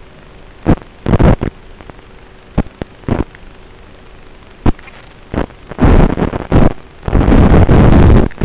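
Analog FPV video receiver's audio channel: a steady hiss with a faint hum, broken again and again by sudden loud crackling bursts of static as the radio link drops out, the longest lasting over a second near the end while the video signal breaks up.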